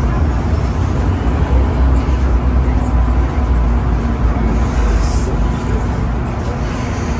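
Inside a moving MTR M-Train on the Island Line: a steady deep rumble of the train running on the track, with a faint constant hum over it. A brief high hiss comes about five seconds in.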